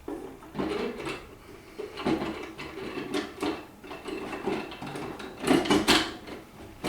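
Parts of a vending tower being handled and fitted together: scraping and sliding with a string of knocks, the loudest a quick cluster of sharp knocks near the end.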